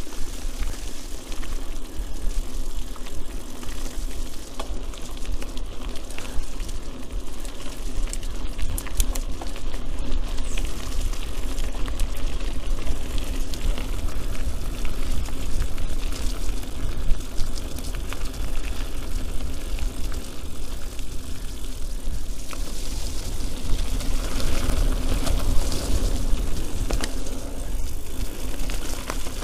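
Mountain bike being ridden along a wet, rooty forest trail, picked up by an action camera's built-in mic: a steady low rumble of rolling and wind noise with many small clatters and knocks as the bike goes over bumps.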